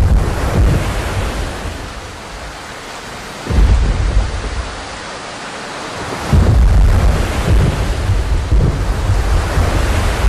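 Storm-like rumbling soundtrack: a dense hiss with deep rumbles that fade out twice and cut back in suddenly, once about a third of the way in and again a little past the middle.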